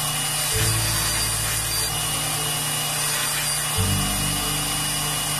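Belt grinder running with a steady hiss and a thin high whine, over background music whose low bass notes change about every three seconds.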